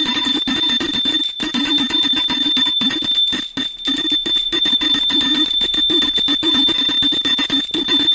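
Brass pooja hand bell rung continuously during worship, with rapid metallic strikes over a steady high ringing tone.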